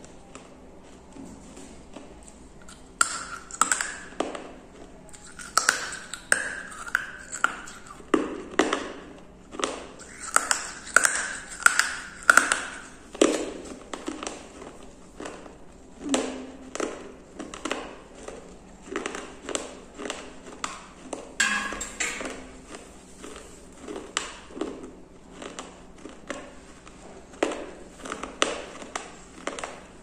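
Fragments of a broken terracotta kulhad (clay cup) crunching between the teeth, chewed close to the microphone, about one hard crunch a second. Several bites in the first half give short ringing pings.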